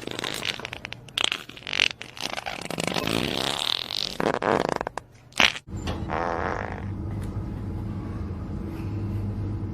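Farting: a run of short, irregular, rasping farts for about the first five seconds, then, after a sudden cut, one fart about a second long over a steady low hum.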